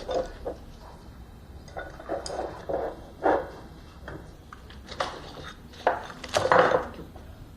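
Tableware being handled at a meal: a series of short clinks and clatters a second or so apart, the loudest cluster near the end.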